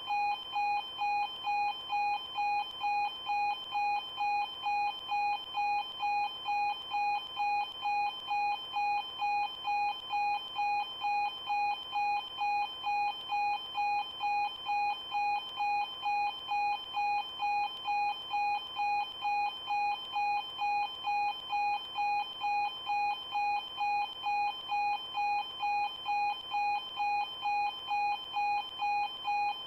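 Railway level crossing warning bell ringing continuously, the same single-pitched ding repeating at an even, quick pace.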